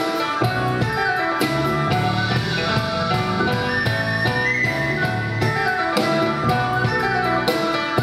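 Live instrumental trio of grand piano, flute and drum kit: busy piano notes under a flute line that holds a high note about halfway through, with drums and cymbals keeping time.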